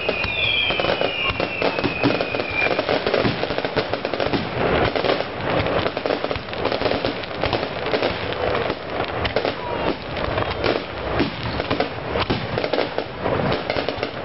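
Fireworks display: a dense, continuous run of bangs and crackling bursts, with several falling whistles from whistling shells in the first few seconds.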